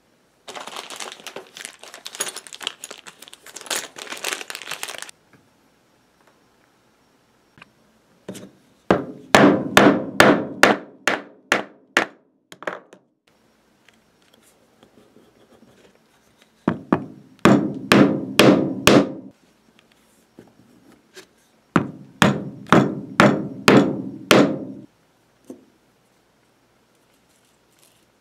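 Mallet striking a pronged leather stitching chisel to punch stitching holes through layered leather: three runs of quick, sharp knocks about three a second. Before them, a scratchy rubbing noise for a few seconds.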